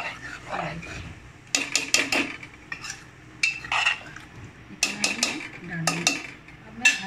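Steel ladle stirring curry in an aluminium pressure cooker, clinking and scraping against the pot's sides and base in short bursts.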